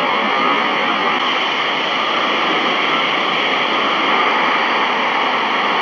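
A steady rushing noise with no distinct events or rhythm.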